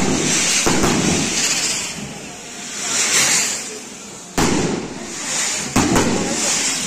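Fireworks from a torito pinto going off: several sharp firecracker bangs, two in quick succession near the end, over a hissing, fizzing spray that swells and fades between them.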